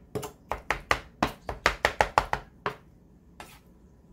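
Knife chopping food on a cutting board in quick, even strokes, about six a second. The chopping stops about two and a half seconds in, and one last lighter stroke follows.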